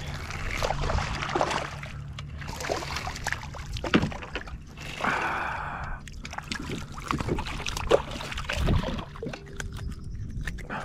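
Hooked ladyfish thrashing and splashing at the surface beside a kayak as it is reeled in, with irregular splashes and scattered clicks and knocks, two of them sharper about four and eight seconds in.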